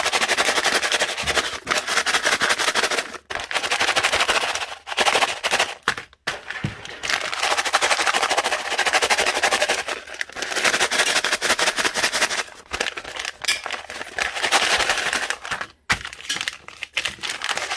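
Microwave pork rind bag crinkling and crackling as it is handled and worked, dense and continuous apart from a few short pauses.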